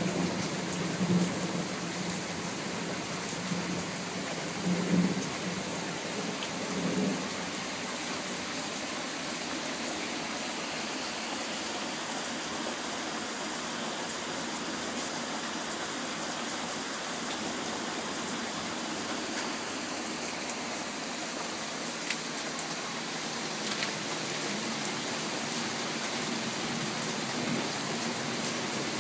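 Soaking rain falling steadily on trees, lawn and pavement, an even hiss throughout. A few low rumbles swell up in the first several seconds, and again more softly near the end.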